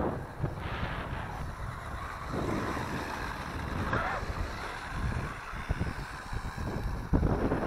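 Wind buffeting the microphone in uneven gusts, with a faint whirr of a small electric RC car driving across the grass.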